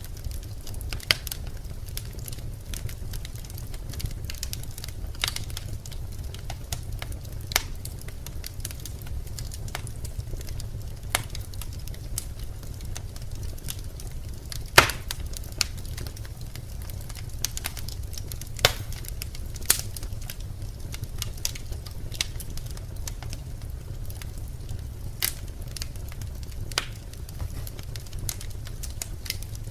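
Birch logs burning in a fireplace: a steady low rumble of the fire with irregular sharp pops and crackles, one louder pop a little under halfway through.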